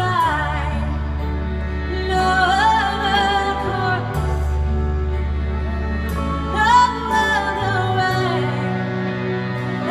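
A woman singing a slow ballad live with a band: sung phrases over held low bass notes that change every few seconds, with keyboard accompaniment.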